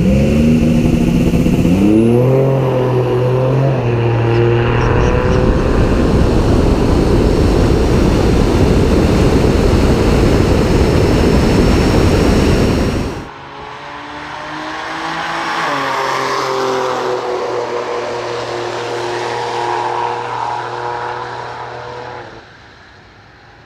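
Tesla Model S P100D's electric drive motors whining and climbing in pitch under full acceleration down the drag strip, buried in heavy wind and tyre noise. About 13 seconds in the noise cuts off abruptly, and a quieter motor whine with a wavering pitch goes on until it drops away near the end.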